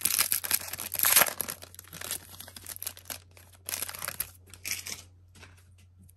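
A hockey card pack's wrapper being torn open and crinkled by hand, a run of rustling and tearing that is loudest about a second in and dies away after about five seconds.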